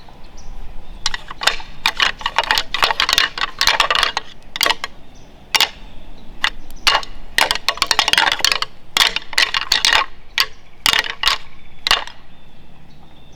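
Rattling antlers clashed and ground together in rapid bursts of clacking, with single sharp knocks between the bursts, imitating two bucks fighting to draw deer in.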